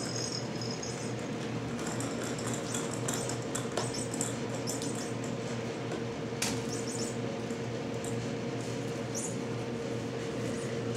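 Ten-week-old kittens playing around a fabric play tunnel and ball-track toys: faint scattered ticks and rustles, two sharper clicks, and one short rising high squeak near the end, over a steady low hum.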